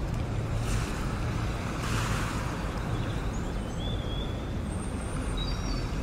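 Steady low rumbling noise with two whooshes swelling about one and two seconds in, and a few faint high chirps in the second half.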